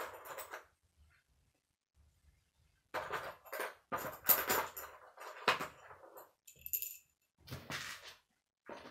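Hard plastic K'nex pieces clattering and clicking as they are handled and fitted together, in short bursts with pauses between.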